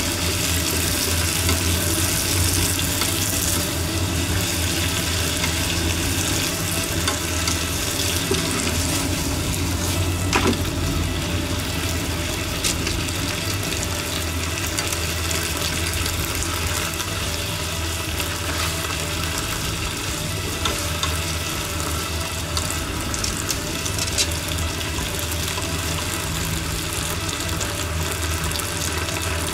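Sliced green peppers sizzling in seasonings in a non-stick frying pan as they are stirred with wooden chopsticks, a steady frying hiss with occasional light clicks of the chopsticks against the pan. A steady low hum runs underneath.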